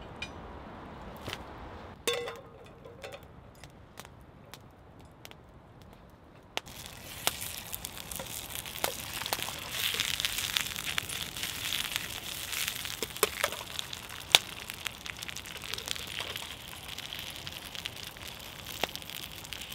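Wood fire crackling: a few scattered snaps, then about six and a half seconds in a dense crackle with many sharp pops starts abruptly and keeps going.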